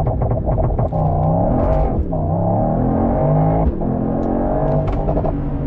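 Mercedes-AMG GT 63's 4.0-litre twin-turbo V8 accelerating hard through the gears. The pitch climbs in each gear and falls at upshifts about two seconds and three and a half seconds in, then once more near the end.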